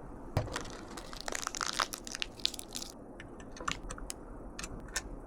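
Handling noise from PC cooler mounting parts: small sharp clicks and taps, with a crinkly rustle between about one and three seconds in.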